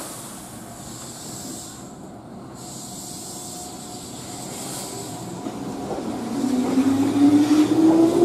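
Keihan electric train pulling away: a hiss, then from about six seconds in the traction motors whine, rising steadily in pitch and growing louder as the train accelerates.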